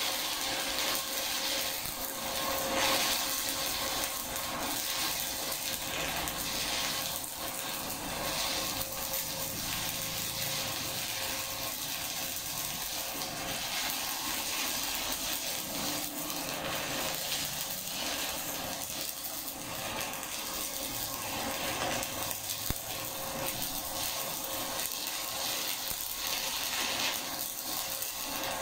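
Stick (SMAW) welding arc crackling and sizzling steadily while a bead is run on flat plate with a zigzag weave.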